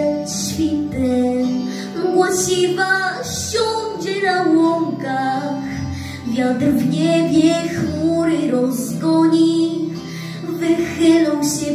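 A young girl singing a Polish patriotic song into a microphone over an instrumental backing track.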